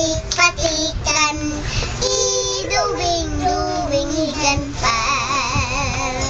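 A young girl singing a Tagalog song in phrases, ending on a long held note with a wavering pitch.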